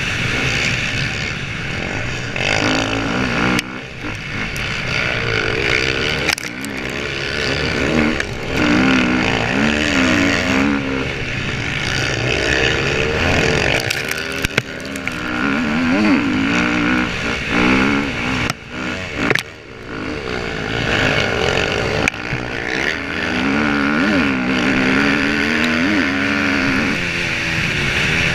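Dirt bike engine heard from on board, revving up and down through the gears at race pace, its pitch rising and falling over and over. There are several short drops where the throttle is shut.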